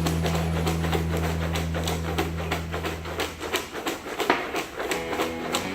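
Popcorn rattling and clicking as it is shaken with salt in a closed container, over a steady low hum that fades out about three seconds in.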